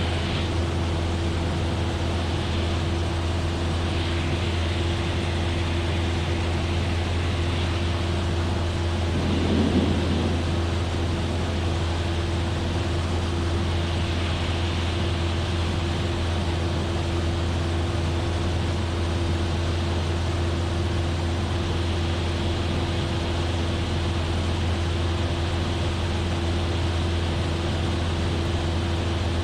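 Cessna 172F's six-cylinder Continental O-300 engine and propeller droning steadily in cruise flight, heard in the cockpit, with a brief louder rush about ten seconds in.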